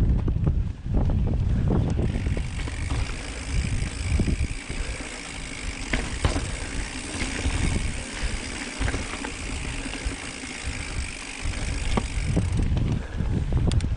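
Mountain bike riding over a dirt singletrack: wind rumble on the mic, tyre noise and rattles from bumps in the trail, heaviest near the start and end, with a steady high buzz through the middle.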